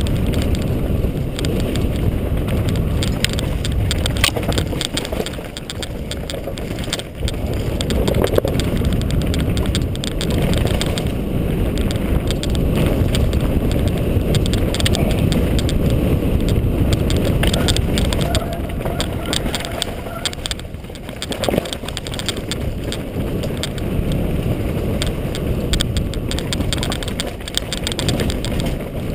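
Mountain bike rolling downhill over a rocky dirt trail: a continuous rumble of tyres on stones and gravel, with the bike rattling and knocking over the bumps throughout.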